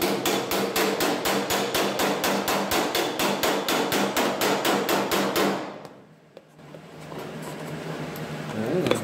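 Body hammer tapping fast on sheet steel backed by a hand dolly, about five blows a second with a light metallic ring, planishing a fresh TIG weld while it is still hot. The hammering stops a little over halfway through, leaving a faint hum.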